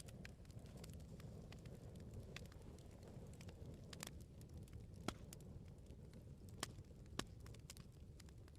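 Wood fire burning with a steady low rumble and frequent small crackles, a few sharper pops among them.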